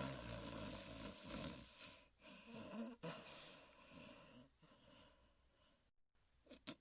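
Huckleberry Hound, the cartoon dog, snoring in his sleep: a long noisy snore, a short higher note about two and a half seconds in, then another snore starting suddenly about three seconds in and fading away. The sound cuts out briefly near the end.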